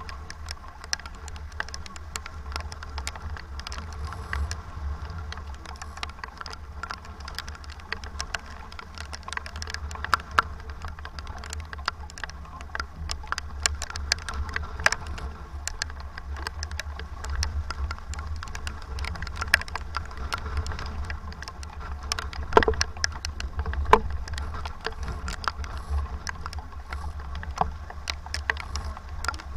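Strong wind of about 25 knots rumbling on the microphone aboard a racing sailboat, with many scattered sharp ticks and taps throughout and two louder knocks near the end.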